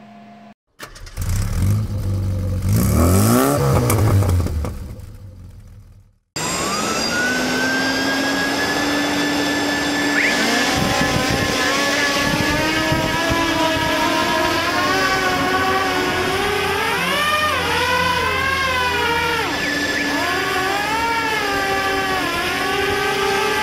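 Radio-controlled hovercraft's electric fans running. A steady fan tone holds while higher motor pitches rise and fall repeatedly as the throttle changes. Before it there is a few seconds of a loud sound that swings up and down in pitch and cuts off suddenly.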